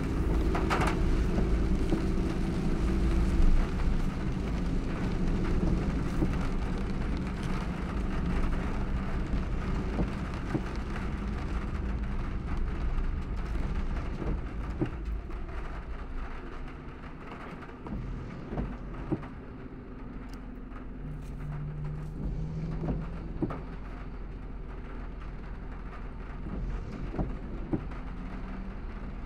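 Car driving in heavy rain: a steady hiss of rain and tyres on the wet road over a low engine rumble, with scattered sharp raindrop ticks. An engine hum is strongest in the first few seconds, and the whole grows somewhat quieter after about seventeen seconds.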